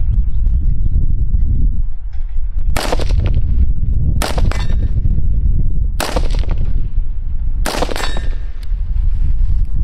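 Four 5.56 rifle shots of M855 green-tip from a 20-inch AR-15, about a second and a half to two seconds apart, each followed by a brief metallic ring from the AR500 steel target. A steady low rumble runs underneath.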